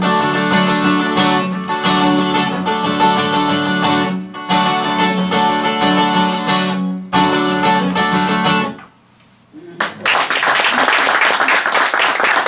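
Acoustic guitar strumming the closing chords of a folk song, which stop about nine seconds in. After a brief pause, an audience applauds.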